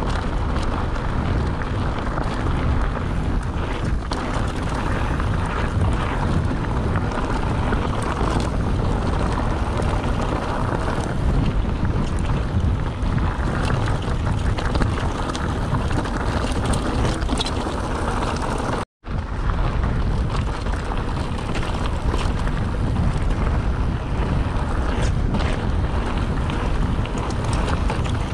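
Wind on the GoPro's microphone and the rumble and rattle of a mountain bike rolling over a rough trail, with many small clicks and knocks from the bike and stones. The sound drops out for an instant about two-thirds of the way through.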